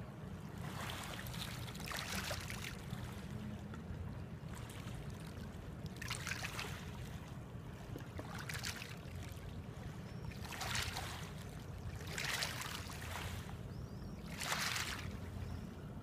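Small wavelets of a calm sea washing onto a pebble beach, each wash a soft hiss coming roughly every two seconds, over a steady low rumble.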